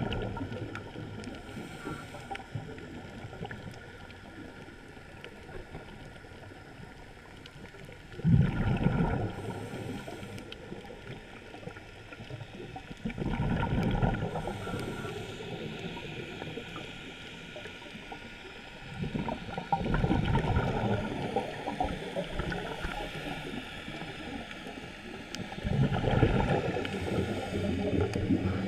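Scuba diver breathing through a regulator, heard underwater: four gushes of exhaled bubbles, one every five to six seconds, with quieter stretches between.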